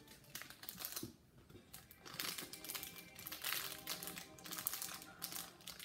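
Crinkling of a plastic toy wrapper as it is handled and opened, a dense crackle that starts about two seconds in.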